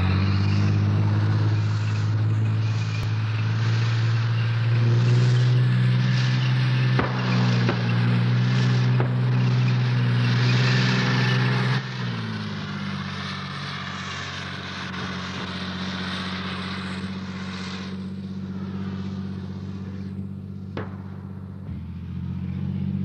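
Tank engines running with a steady low drone under rattling track and dust noise. The sound drops in level and shifts pitch about twelve seconds in, then grows louder again near the end.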